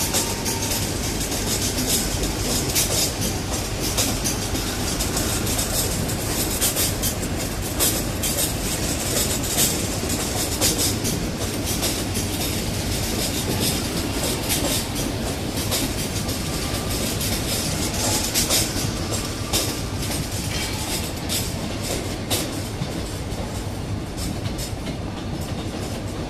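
Railway train rolling slowly through station pointwork: a steady rumble of wheels on rail, with frequent sharp clicks and clatter as the wheels cross rail joints and points.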